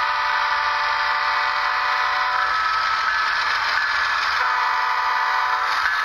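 Sound-equipped HO scale model of a BNSF GE diesel locomotive sounding its horn in long blasts, broken off about halfway through and again near the end, over a steady hiss of motor and running noise.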